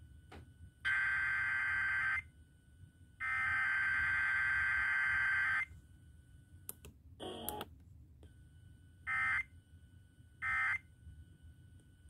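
Emergency Alert System SAME data bursts, the buzzy warbling digital tones of a weekly test, heard off an FM radio. A burst starts about a second in and a longer one follows at about three seconds. Near the end come two brief end-of-message bursts, with no long attention tone in between, so the test sequence comes out incomplete.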